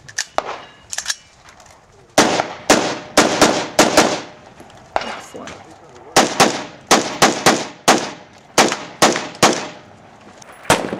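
Semi-automatic JP Enterprises rifle firing rapid strings of shots, several a second: about seven, a short pause, about seven more, then five, with a last single shot near the end.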